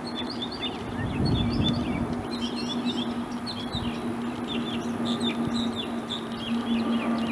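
Many birds chirping in quick, short calls, over a steady low drone from distant aircraft that grows stronger about a second in.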